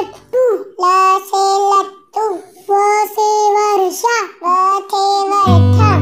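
A child's voice singing a Hindi alphabet song in short phrases, mostly unaccompanied, with the backing music coming back in near the end.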